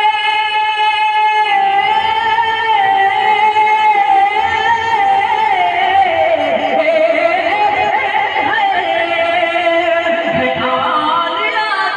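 A male naat reciter singing one long, high, drawn-out note without instruments. The note is held steady at first, then winds slowly down in ornamented turns and climbs again near the end.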